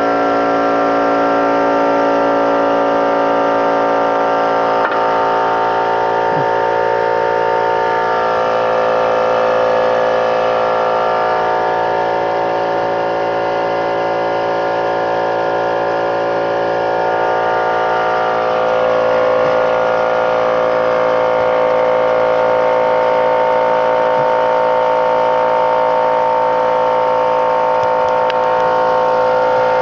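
Air compressor running steadily, a constant machine hum with an even stack of tones and no change in speed.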